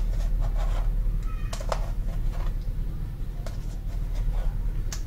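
Thick tamarind pulp being pressed and scraped against a steel wire-mesh strainer: faint, irregular scratching strokes over a steady low hum.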